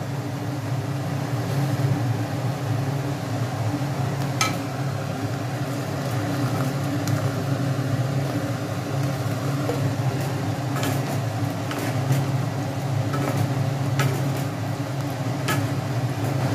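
A steady low machine hum, with scattered light clicks and knocks as fried chicken pieces are added to a pan of simmering sauce and stirred with a wooden spatula.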